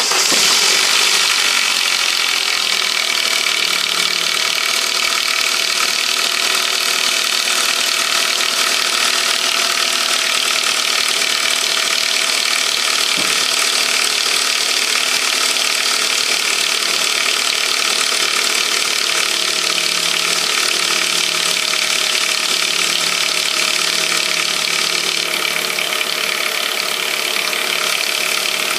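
Saab 9-5 2.0 light-pressure-turbo four-cylinder engine running steadily just after an overnight cold start, with a strange mechanical noise over the idle. The noise eases slightly near the end.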